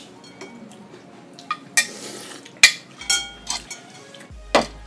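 Ceramic ramen bowls clinking and knocking against each other and the tabletop: a handful of sharp clinks, some with a brief ring, the loudest near the end as a bowl is set down on a stack.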